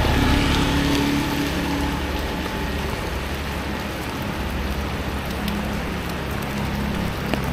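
Steady rain falling on a wet street, with a low engine hum from passing traffic in the first second or so and again near the end.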